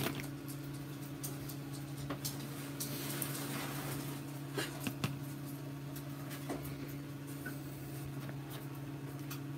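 Small plastic toy figures being picked up and moved on a tabletop: a few light clicks and knocks and some handling rustle about three seconds in, over a steady low hum.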